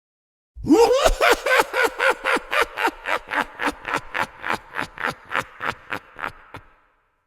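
Evil dwarf villain laugh sound effect: a high-pitched, shrill, mocking cackle of rapid 'ha' syllables, about four a second. It starts loud about half a second in, the first syllables sliding down in pitch, and grows steadily softer until it dies away near the end.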